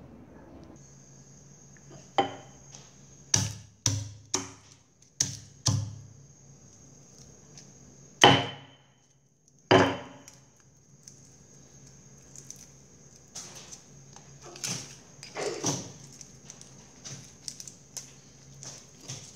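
A series of sharp knocks and thuds on a hard surface, the loudest two about 8 and 10 seconds in, then soft crackling clicks of garlic cloves being peeled by hand. A faint steady high-pitched whine runs underneath.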